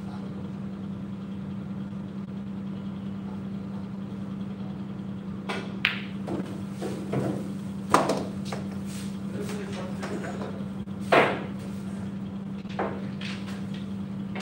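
Pool balls being struck: sharp clicks of cue on ball and balls knocking together, about half a dozen spread over the second half, the loudest two a few seconds apart, over a steady low hum.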